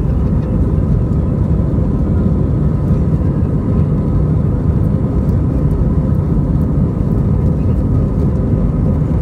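Airbus A320 cabin noise in the climb after takeoff: a steady, loud rumble of engines and airflow, with a few faint steady whine tones over it.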